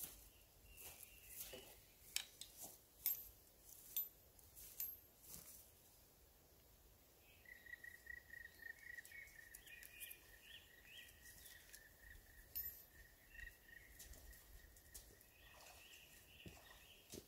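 Near silence with faint outdoor ambience: scattered faint clicks and knocks in the first few seconds, then a faint, steady high-pitched tone with small chirps over it through the second half.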